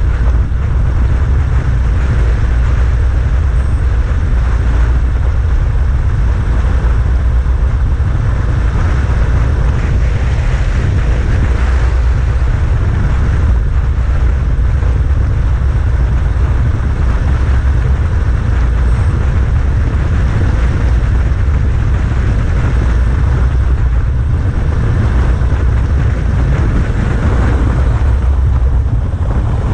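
Wind rushing over the microphone of a bike-mounted action camera on a road bike descending at about 60 km/h: a loud, steady rumble with a hiss over it.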